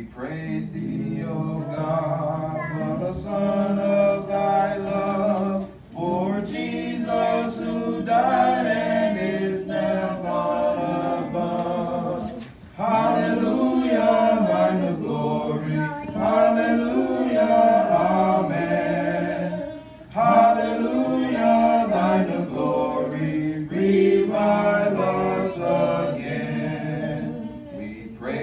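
Small congregation singing a hymn together a cappella, without instruments, in long phrases with brief breaks between lines.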